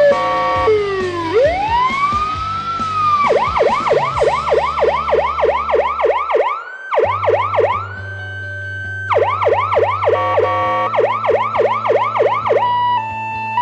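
Patlite electronic siren amplifier stepping through its tones: a falling glide and a slow rising wail, then a fast yelp of about four sweeps a second, a held steady tone, the fast yelp again, and a stepped steady tone near the end.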